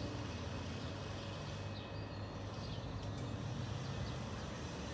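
Southern Class 377 Electrostar electric multiple unit standing at the platform, its onboard equipment humming steadily, with a few faint bird chirps.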